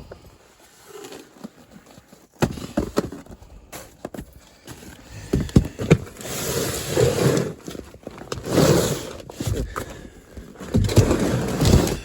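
Irregular knocks and clatter mixed with bursts of rustling and scraping, as of someone handling things and moving about.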